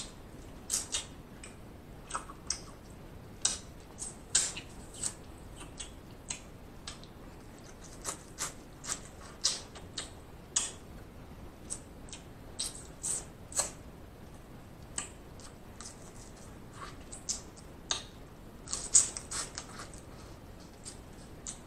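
Close-miked mukbang eating sounds: wet lip smacks and mouth clicks while chewing snow crab meat, coming as irregular sharp ticks.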